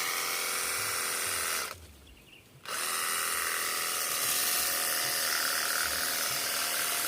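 Cordless battery-powered pressure washer running with its 15-degree nozzle tip: a steady motor-pump whine with the hiss of the spray. It cuts out at about 1.7 s, starts again about a second later and then runs steadily.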